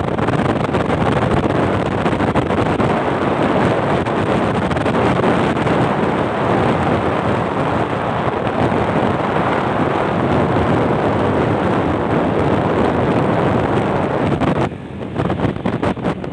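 Wind rushing over the microphone of a moving two-wheeler, mixed with its road and engine noise. The rush dips briefly near the end.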